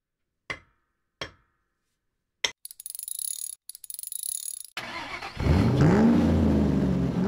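A few sharp clicks, a crackling hiss, then a car engine catches about five seconds in and revs up, drops back, and starts to rise again near the end.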